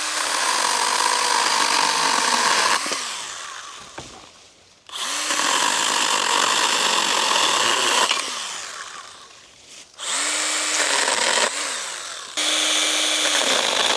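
A Stihl GTA 26 battery pruner (mini chainsaw) cutting a thick branch in four bursts. Each time the motor spins up, runs, and winds down, and the battery is nearly flat.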